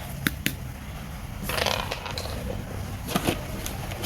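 Wire stripper pliers and electrical cable being handled: a few sharp clicks near the start, a short rustling scrape about a second and a half in, and a couple more clicks near the end.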